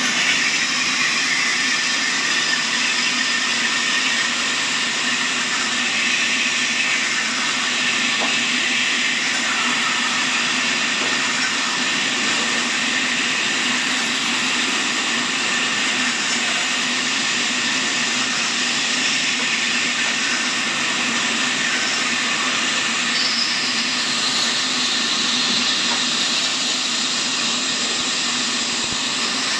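Horizontal band sawmill cutting lengthwise through a large log: the band blade gives a steady hissing rasp through the wood over a constant machine hum and a steady higher whine.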